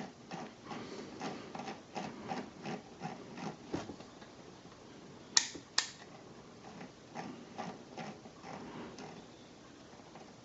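Faint, irregular small clicks and taps as bench test gear is handled and a power supply's voltage control is turned down, with two sharper clicks a little past halfway.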